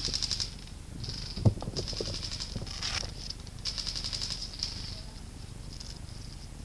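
Bursts of full-auto airsoft rifle fire: short rapid buzzing rattles, one after another. A single sharp knock comes about a second and a half in.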